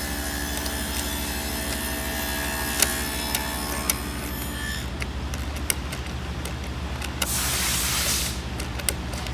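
A ratcheting socket wrench clicking in short runs, with a brief fast rasp about seven seconds in, as a bolt is turned. Under it the steady, evenly pulsing low drone of an idling engine.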